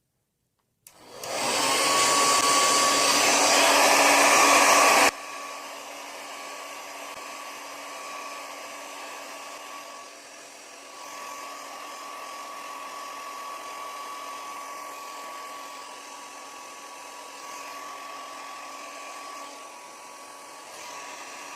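Handheld hair dryer switched on, its motor spinning up to a loud, steady blowing with a high whine. About five seconds in it drops suddenly to a quieter level and keeps running steadily.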